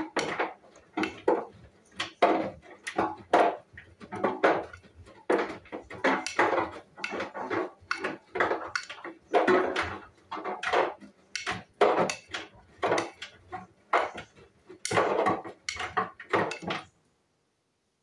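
Hoover front-loading washing machine drum turning, with wet laundry and a mesh laundry bag lifting and dropping back into the wash water in repeated sloshing, clattering splashes, about one or two a second. The sound cuts off suddenly near the end.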